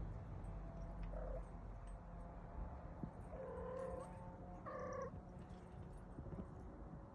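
A pet cat making short, soft vocal calls, three in all: a brief one about a second in, then two longer ones around three and a half and five seconds in.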